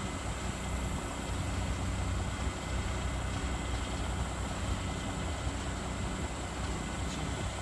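Freightliner dump truck's diesel engine idling steadily, a low, even drone.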